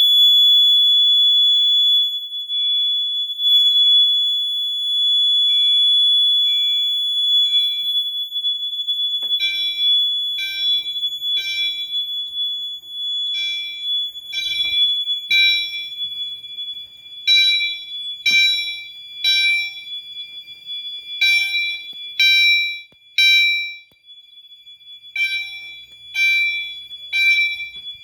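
Fire alarm system sounding during a test. A steady high-pitched alarm tone dies away about eight or nine seconds in. After that, an appliance set on chime rings in the temporal-three evacuation pattern: three ringing strikes about a second apart, then a pause, repeating.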